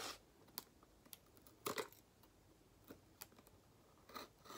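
Small knife blade cutting into a cardboard box: a few faint scrapes and clicks, with a short cluster about halfway through and another near the end.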